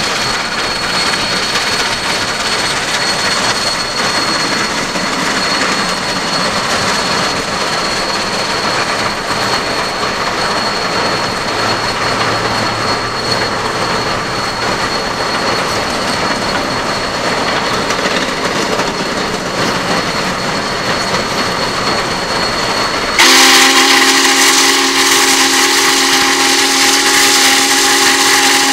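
Union Pacific 844 steam locomotive running at speed, heard alongside as a steady rumble with air noise. About 23 seconds in its steam whistle sounds one long, loud blast, a chord of several notes held steady.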